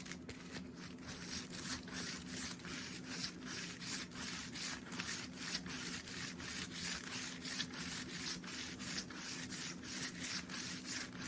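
Rolling knife sharpener's coarse diamond disc rolled back and forth along a kitchen knife's edge, a steady run of scraping strokes about two a second as the second side of the blade is ground at a 20-degree angle.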